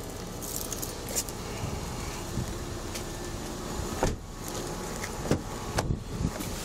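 Clinking and knocking handling sounds over a steady low rumble: a light metallic jingle about half a second to a second in, then several sharp clicks and knocks in the second half.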